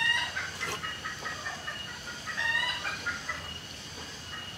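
Chickens clucking: a string of short calls, with a louder rising call about halfway through.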